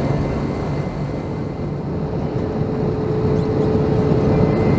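Cabin noise of an Airbus A321 in descent: a steady rumble of airflow and its CFM56-5B engines heard from a seat over the wing. A faint steady tone joins in about two seconds in.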